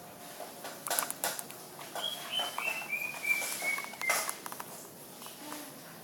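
Greater green leafbird (cucak ijo) calling: a run of about seven short whistled notes stepping down in pitch over about two seconds, with a few sharp clicks before it and one at its end.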